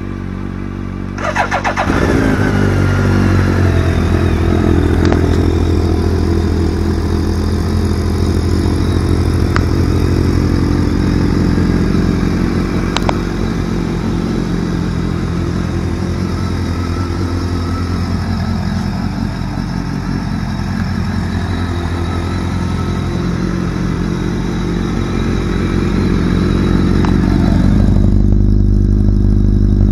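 A Kawasaki Z750S inline-four is idling at a raised idle when, about a second in, a BMW K1200GT inline-four is started on its electric starter and catches. Both engines then idle together as they warm up. Near the end the Kawasaki's aftermarket Stealth silencer is heard up close, a deeper and louder exhaust note.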